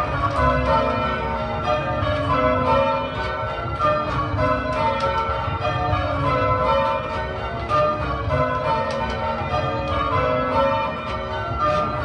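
A ring of six church bells, mostly 1909 Gillett & Johnston, rung full-circle in change ringing: a steady, even succession of strikes, one bell after another, their tones overlapping and hanging on. This is the start of a touch, just after the call to begin.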